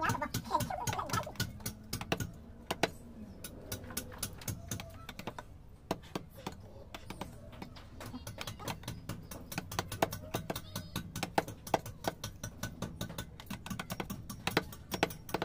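Steel carving chisel working soft natural stone, making irregular sharp taps and scrapes, some of them mallet blows on the chisel.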